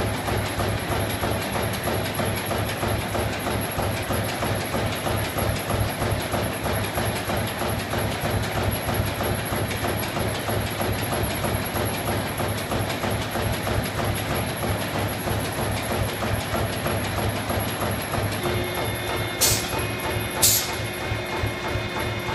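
Paper blank punching machine for ice cream cone sleeves running steadily, a dense rapid mechanical clatter of the punching stroke. Near the end two sharp clicks stand out over it and a faint steady tone joins in.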